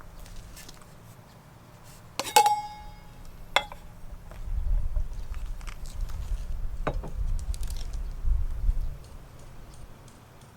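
A few handling knocks, with one sharp metallic clink that rings on briefly about two seconds in, like metal camp cookware or gear being set down. A low rumble runs through the middle.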